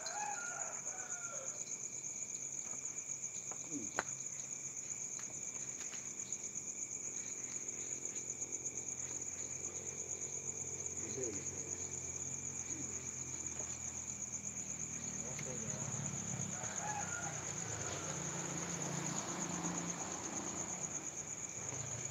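Steady night chorus of crickets, a shrill pulsing trill that never lets up. A fainter low drone comes and goes beneath it in the second half.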